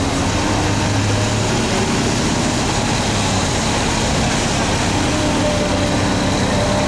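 A heavy diesel engine running steadily at an even, low speed over a constant hiss.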